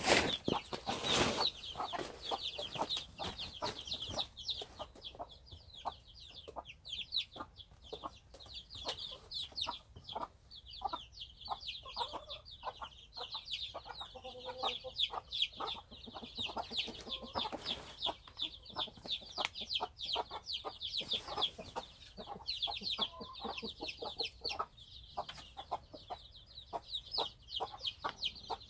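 A brood of young chicks peeping without pause, many short, high, falling peeps overlapping, with a hen's lower clucks now and then.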